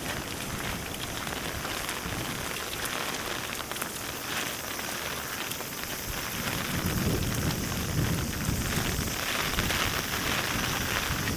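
Heavy rain falling steadily and pattering on surfaces, recorded binaurally, with low rumbling swells coming in about halfway through.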